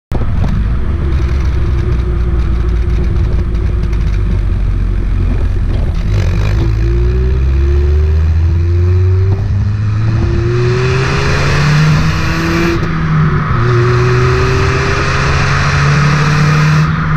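Kia Elan's stock-exhaust 1.8-litre naturally aspirated four-cylinder, heard from inside the cabin. The engine runs steadily at first; from about six seconds in, the revs rise in a series of pulls with a drop between each, climbing higher through the rest of the clip.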